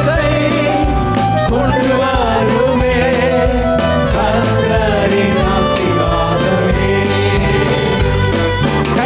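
Tamil Christian worship song: a full band with a steady drum beat under a gliding lead melody, with singing.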